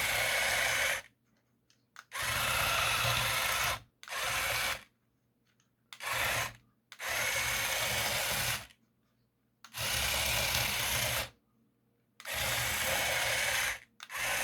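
Two metal-geared TT gear motors whirring as they drive a small 3D-printed tracked RC vehicle in about seven short spurts, starting and stopping sharply as the throttle is worked.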